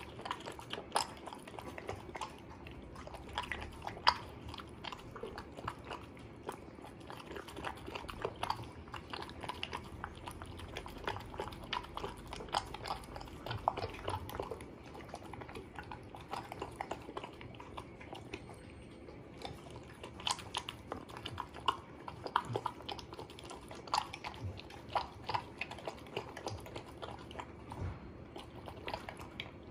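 A small dog eating kibble mixed with chicken and chayote pieces in broth from a stainless steel bowl: wet chewing and crunching with many irregular clicks, one sharper than the rest about four seconds in.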